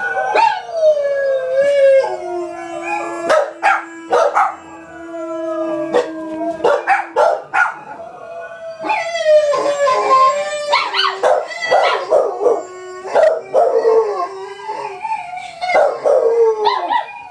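Bluetick hound howling in long drawn-out notes, some held steady and some sliding down in pitch, broken by short sharp barks.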